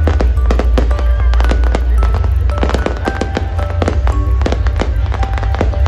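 Aerial fireworks bursting and crackling in rapid, irregular pops, with music playing over them.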